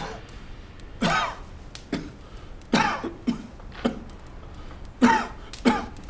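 A person coughing repeatedly in short, harsh bursts, about one a second, some in quick pairs.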